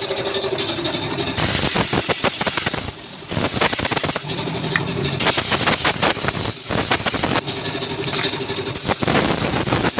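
Compressed-air gun blowing dust out of a scooter's air filter in several hissing blasts, each a second or two long, with a rapid crackle.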